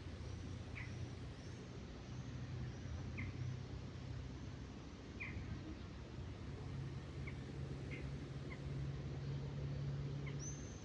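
Birds chirping: short sharp calls every second or two, with fainter high thin notes, over a steady low rumble.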